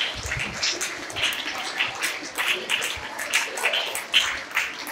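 Light, scattered hand-clapping from a small audience, irregular claps throughout.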